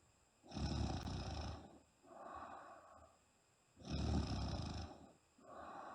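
A woman snoring in deep sleep: two loud rattling snores about three and a half seconds apart, each followed by a softer, higher breath.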